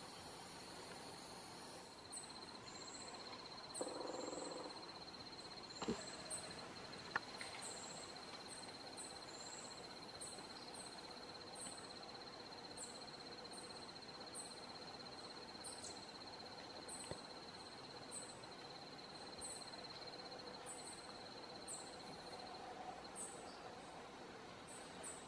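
Faint forest ambience: a steady high-pitched insect buzz, with short high chirps repeating about once a second. A brief rustling sound comes about four seconds in, and a couple of sharp clicks come around six to seven seconds in.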